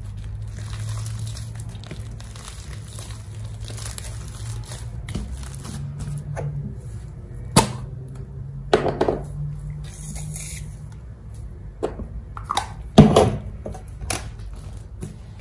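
Fluffy purple slime being stretched and dropped in a heap onto a foam mat, with a few sharp squishy slaps. Near the end a white cream is squeezed out of a bottle onto it, the loudest sound, all over a steady low hum.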